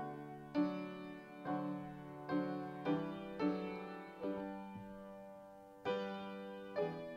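Solo piano playing a slow piece, chords struck about once a second and left to ring and fade.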